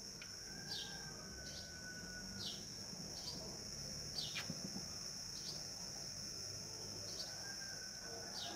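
A steady high-pitched insect drone, with a small bird giving short falling chirps about once a second, eight or so times.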